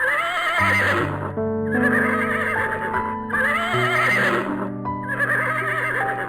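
Horse whinnying four times in a row, each call about a second long with a wavering pitch, over soft piano music.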